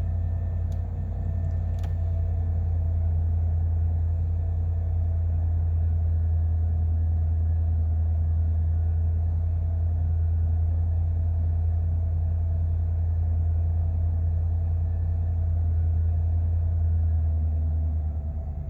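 A 1993 Ford F-150's 302 V8 idling steadily a few minutes after a cold start, its fast idle being allowed to settle; the level dips a little near the end.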